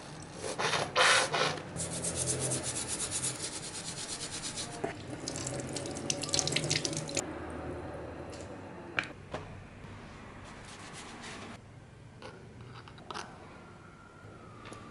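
Steel knife blade being scrubbed with a scouring pad in a wet stainless steel sink, washing off rust remover: a fast run of rubbing strokes for about the first seven seconds, then quieter with a few sharp clicks.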